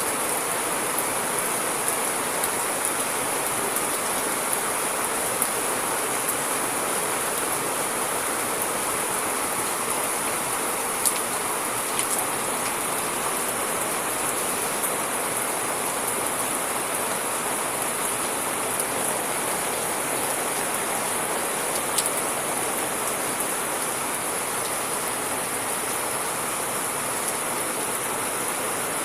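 Steady, even rain falling, with an occasional sharper drop tick.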